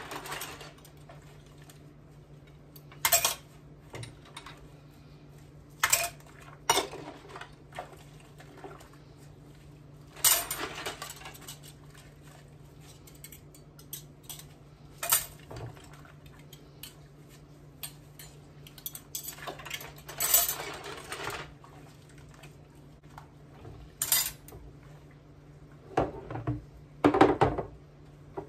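Washing up by hand: metal cutlery, utensils and dishes clinking and clattering in the sink every few seconds as they are scrubbed and set down, with the biggest clatter near the end. A steady low hum runs underneath.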